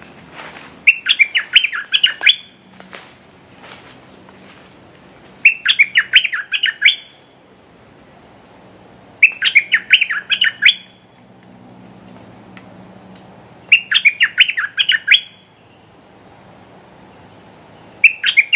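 A bulbul singing short, loud, burbling song phrases of about a second and a half each, repeated about every four seconds. This is the song of a caged decoy bulbul used to lure a wild territorial bird.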